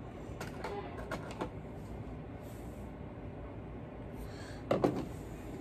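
Small handling clicks and taps as small model locomotive parts are worked by hand: a few faint clicks in the first second and a half, and a louder short clatter of knocks near the end.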